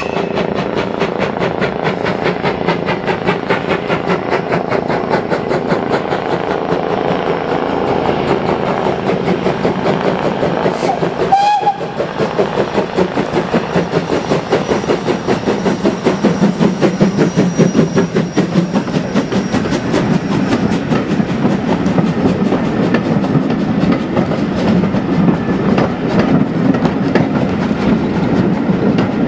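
Ivatt Class 2 steam tank locomotive working a passenger train, its exhaust beating in a fast, even rhythm and growing louder as it passes close by. Its coaches then roll past with a rhythmic wheel clatter over the rail joints.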